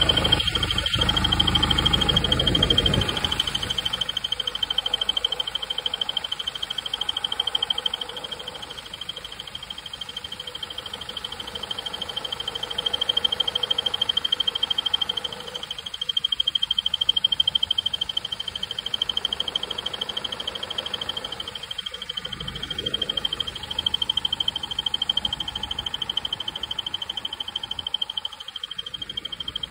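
BMW N47D20 diesel's accessory belt drive squeaking with the air-con compressor running: a steady high-pitched squeal with a fast flutter over the engine. The fault was the crankshaft pulley (harmonic balancer); replacing it cured the squeak.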